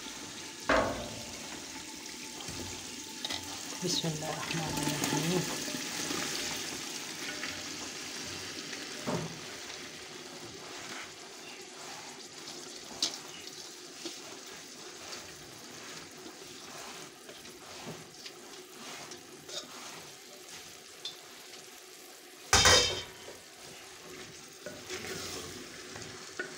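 Onion-tomato masala frying and sizzling in oil in a clay handi while it is stirred with a spoon, with scattered knocks and one loud clatter near the end.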